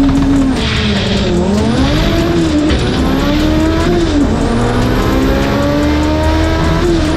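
Race car engine running at high revs, its pitch held steady at first, then dipping and climbing again several times, with a high whine rising over it.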